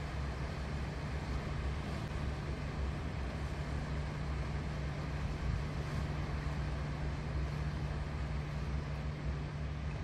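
Steady outdoor ambience by the sea: a low, even rumble under a soft continuous hiss, with no distinct events.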